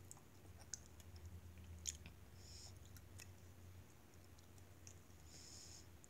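Very faint chewing of a jelly bean: scattered small mouth clicks over a low steady hum, with two short soft hisses about two and a half and five and a half seconds in.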